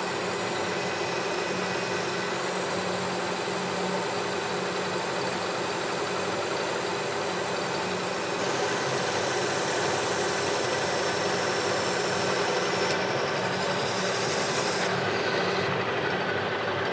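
Metal lathe running while its cutting tool takes a turning pass along a cast-iron casting: a steady motor and gear hum under the hiss of the cut, with cast-iron chips spraying. The cutting hiss fades near the end as the pass finishes.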